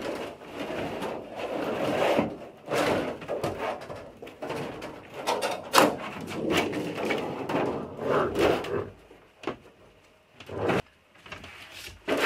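Large thin aluminum interior wall panel being handled, flexed and dragged over a plywood subfloor: irregular rubbing and scraping, with several sharp knocks, the loudest about six seconds in.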